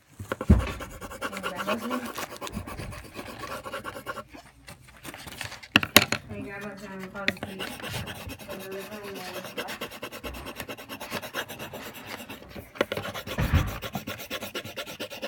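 Pencil scratching and rubbing on paper close to the microphone, in quick continuous drawing strokes. A few thumps stand out, the loudest near the start and about six seconds in.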